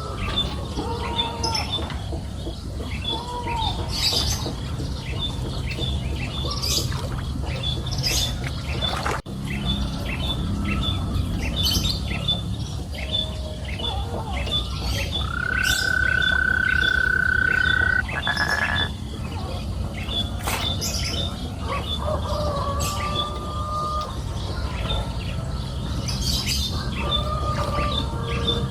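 Birds chirping and calling, with a high chirp repeating evenly about three times a second and short scattered calls. Near the middle, a single long, steady whistle lasts about two and a half seconds and is the loudest sound, over a steady low background noise.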